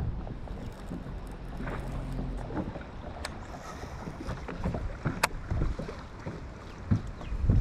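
Low rumble of wind on the microphone and water around a fishing boat, with a brief low hum about a second in and two sharp clicks later.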